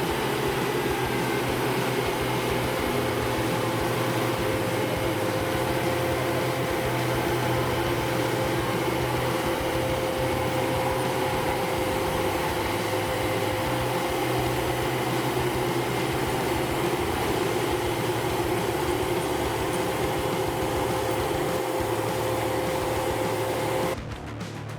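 Heavy log truck's engine running under steady load, a constant drone with a steady whining tone over it, with no change in revs. It cuts off abruptly near the end.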